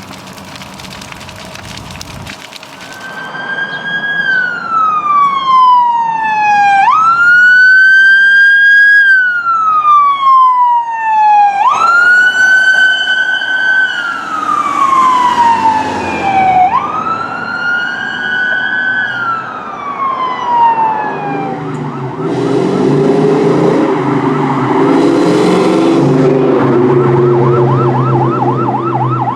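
Emergency-vehicle siren in a wail, jumping up in pitch and then sliding slowly down about every five seconds. About two-thirds of the way through, a louder, low, steady blaring takes over, which fits a fire truck's air horns, with engine noise under it. Near the end a fast yelp siren starts, sweeping up a few times a second.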